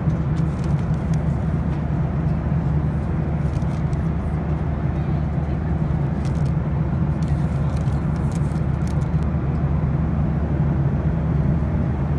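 Steady cabin drone of a Boeing 737-800 in flight, the CFM56 engines and airflow heard from inside the cabin as a low, even hum. Faint crinkles of a paper bag handled close by.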